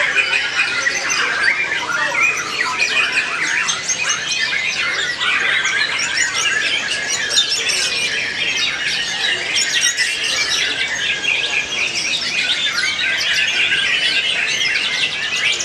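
White-rumped shama singing: a continuous rapid stream of varied whistles, trills and chattering notes, with other caged shamas singing at the same time.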